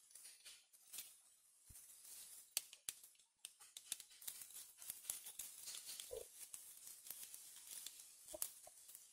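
Faint scattered clicks and scrapes of a small screwdriver working the terminal screws of a plastic wall socket, with the rustle of hands handling the socket and its wires.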